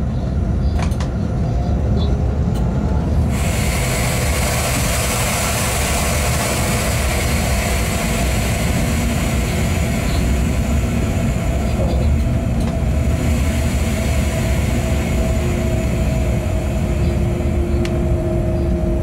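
Steady running rumble heard from the cab of a freight train in motion. About three seconds in a loud hiss starts suddenly and fades away a few seconds before the end, and a faint steady whine joins near the end.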